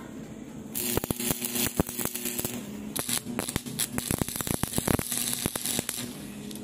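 Stick (shielded metal arc) welding on a steel pipe: the arc strikes about a second in and crackles and spits with sharp pops as the electrode burns, breaks off briefly near the three-second mark, then runs again until about six seconds in.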